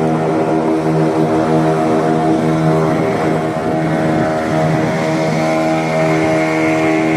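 Fishing boat's engine running at a steady speed with an even hum.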